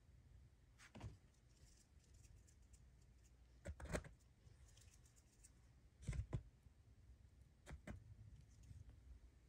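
Near silence: a low steady room hum with four faint, short soft bumps and rustles spread through it, the loudest about four seconds in; no mewing.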